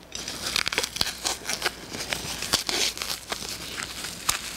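Clear plastic protective film crinkling and crackling as it is pulled and cut away from a leather handbag's handle with scissors, with many irregular sharp clicks.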